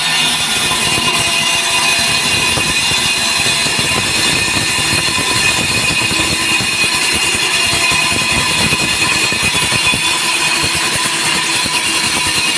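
Diamond core drill boring a hole in a concrete slab: the motor runs with a steady high whine over a rough, rattling low rumble.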